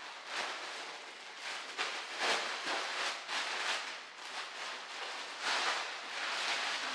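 Thin clear plastic bag crinkling and rustling as it is pulled open and off a wrapped pan, in uneven spurts of crackle.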